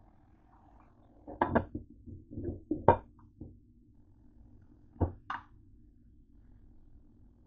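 Kitchen clatter of cookware and utensils: a quick run of knocks and clinks about a second in, then two sharp clinks near the middle, over a low steady hum. Among them the glass lid goes back onto the cooking pot.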